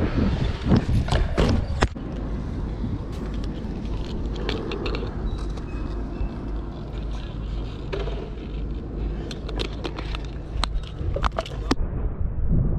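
BMX bike rolling on skatepark concrete, with sharp knocks and clacks from the bike in the first two seconds. After that comes a steady low rumble with scattered clicks, the sound of skateboards rolling and clacking on the concrete.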